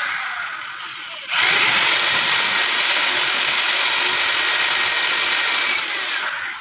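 Power tool running during a gearbox repair. A first run eases off, then a steady, loud stretch of about four and a half seconds winds down near the end.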